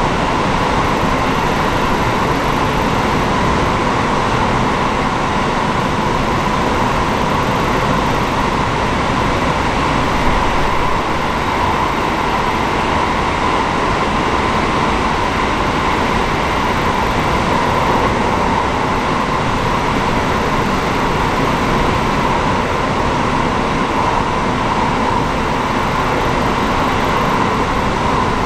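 Steady, continuous interior noise of a KiHa 40 diesel railcar, with its ceiling-mounted electric fans running, a constant hum strongest in the middle range.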